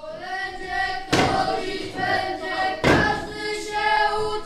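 A group of children's voices singing a carol together, chant-like, with loud thumps struck in a steady beat about every one and a half to two seconds, in time with the song.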